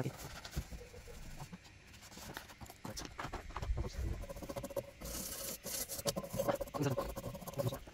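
Cloth rubbing and scraping against the underside of a car's bonnet and its sound-deadening liner, with many small irregular clicks and taps and a few low knocks about four seconds in.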